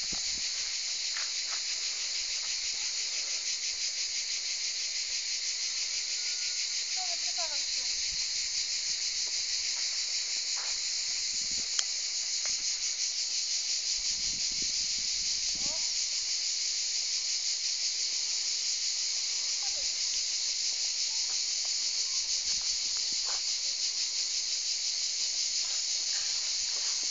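Steady chorus of cicadas, a dense shrill buzz that does not let up.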